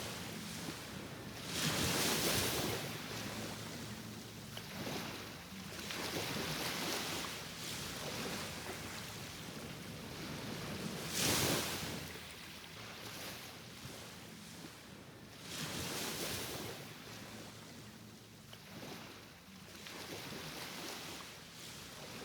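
Waves washing in: a rushing noise that swells and fades every four to five seconds, loudest about two seconds in and again near the middle.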